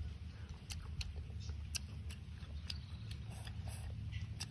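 Close-up chewing of raw honeycomb, with scattered sharp mouth clicks every half second to a second over a steady low hum.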